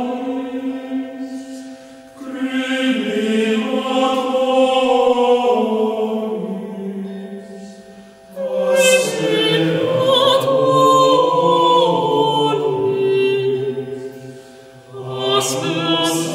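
Choir singing slow, sustained phrases in a chant-like style, with short breaks between phrases about two, eight and fifteen seconds in.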